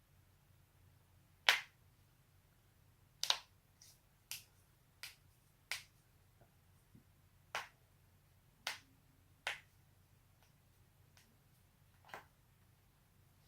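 Human joints cracking: about ten sharp, short pops at irregular intervals, a few of them fainter.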